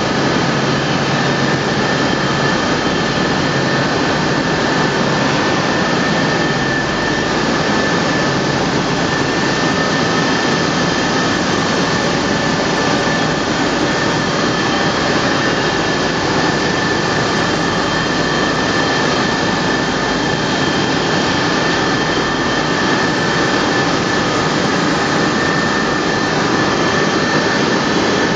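No-twist welding wire coiler running steadily as it lays wire down into a carton: a loud, even machine noise with a steady high-pitched whine running through it.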